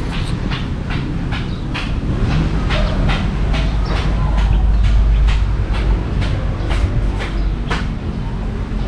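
Footsteps walking at a brisk, even pace, about three steps a second, that stop near the end. Under them is a low rumble of wind buffeting the microphone.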